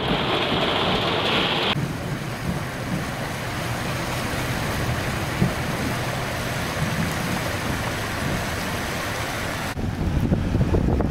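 Heavy rain pelting a car windshield, then, after an abrupt change about two seconds in, a steady rush of floodwater churning along a curb into a street drain. Near the end the sound changes abruptly again to louder, deeper churning of water swirling over a flooded drain.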